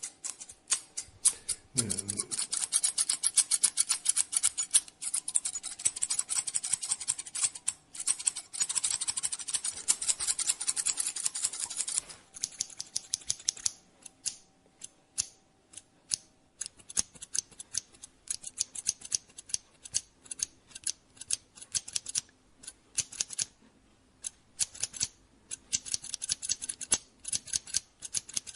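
Barber's scissors snipping hair in fast runs of quick cuts, dense for the first half, then sparser and more spaced out. A brief low sliding sound about two seconds in.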